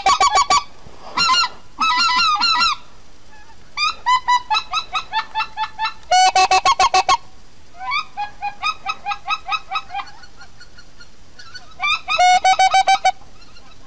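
Geese honking in quick runs of several calls, with short pauses between the runs.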